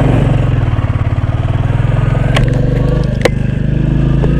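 Motorcycle engine running steadily as the bike rides slowly along, with two sharp clacks about a second apart midway.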